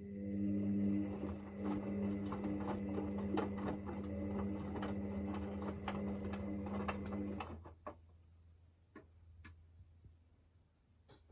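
Hoover VisionDynamic washing machine's drum motor running with a steady hum, with quick clicks and knocks from the turning drum and load. The motor stops about seven and a half seconds in, followed by a few faint clicks.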